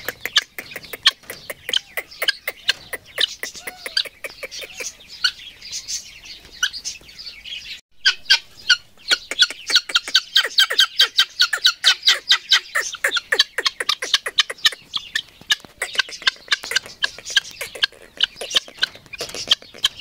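Helmeted guinea fowl calling close by: a rapid, harsh run of short repeated calls, many to the second, with a brief silent gap about two-fifths of the way in and the calling at its busiest just after.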